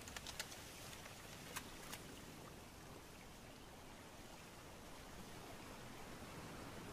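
Quiet night ambience: a faint steady hiss, with a few small sharp ticks in the first two seconds.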